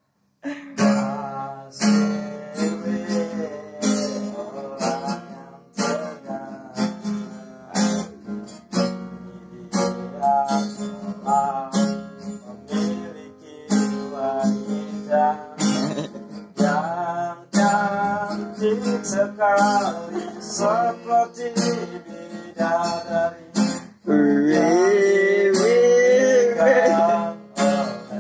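Acoustic guitar strummed in a steady rhythm, with a man singing a melody over it; the singing grows louder and more sustained about four seconds before the end.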